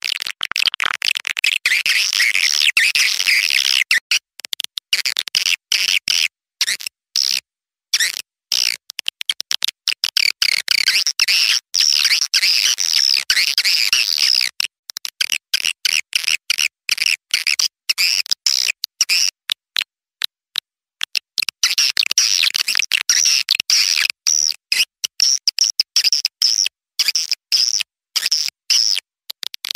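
Swiftlet lure call: rapid, high-pitched twittering chirps of edible-nest swiftlets, densely layered and chopped by frequent abrupt dropouts to silence, as played to attract birds into a swiftlet house.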